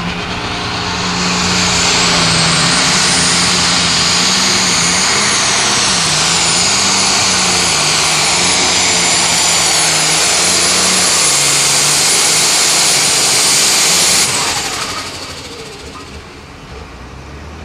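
Heavy super stock International pulling tractor's turbocharged diesel running flat out under load during a pull, with a high turbocharger whistle that climbs in the first two seconds and then holds. About fourteen seconds in the engine is cut back abruptly, and the turbo whine winds down.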